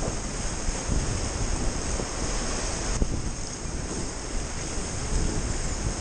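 Whitewater rapids rushing and churning around an inflatable raft, heard from on board, with wind buffeting the microphone.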